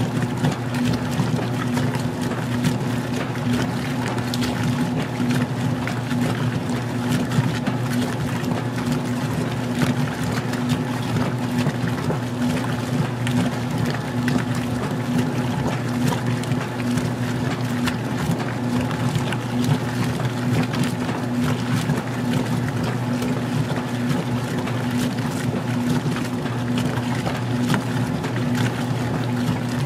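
Magic Chef 20-pound washer agitating an extra-small load on its lowest water level, mid-wash. The washer motor gives a steady hum, with the splash and churn of water in the tub over it.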